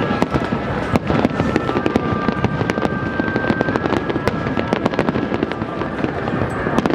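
Fireworks display going off in quick succession: a dense run of sharp crackling pops and bangs, many each second.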